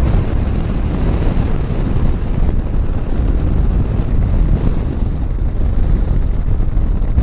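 Steady, loud wind noise buffeting the microphone, with the road noise of a moving vehicle underneath.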